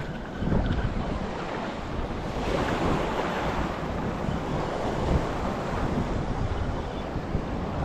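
Wind buffeting the microphone over the steady wash of surf on the reef, with a swell of water noise about two and a half seconds in.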